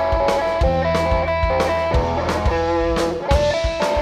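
Live rock trio playing an instrumental passage: an electric guitar plays a melodic line of held notes over electric bass and a drum kit, with regular drum and cymbal hits.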